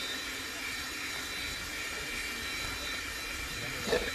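Steady outdoor background noise with faint, constant high-pitched tones. One brief, sharper sound comes near the end.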